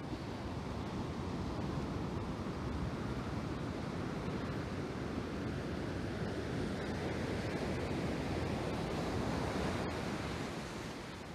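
Ocean surf washing up onto a sandy beach: a steady rush of breaking waves and foam. It swells a little about two-thirds of the way in and eases near the end.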